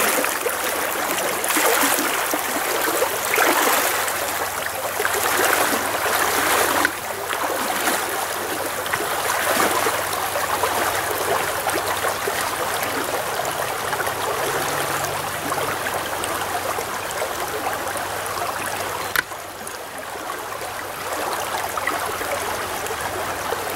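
Shallow stream running over riffles in a steady rush of water, with the sloshing of waders pushing through the current in the first several seconds.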